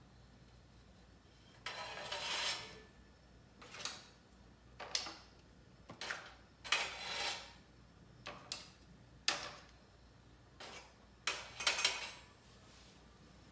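A thick steel griddle plate being rubbed and scraped during seasoning: about ten short, irregularly spaced scraping strokes with light metallic contact.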